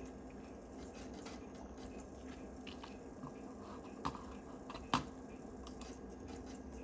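Steady low hum of a running iMac G3 with a few sharp clicks, the loudest about five seconds in, as the Mac OS 8.6 installer opens.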